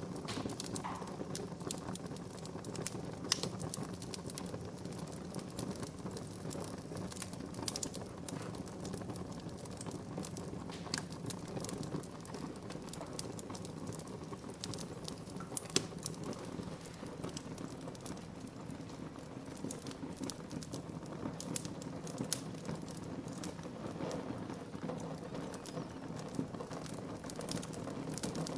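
Wood fire burning in a fireplace, crackling with frequent irregular sharp pops over a steady low rumble of flame.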